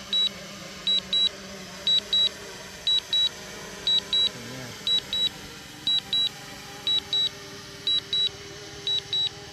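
DJI Mavic 2 Zoom controller beeping a rapid high double beep about once a second, ten pairs in all, over a faint steady hum: the warning that the drone is landing automatically.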